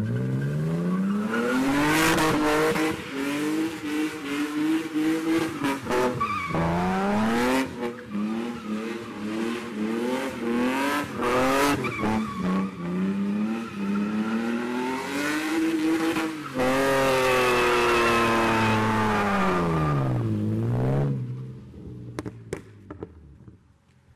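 BMW sedan's engine revving hard through a drift, its pitch climbing and dropping again and again as the throttle is worked, with tyres sliding on the wet road. Near the end it holds one long high rev, then drops away and fades as the car pulls off.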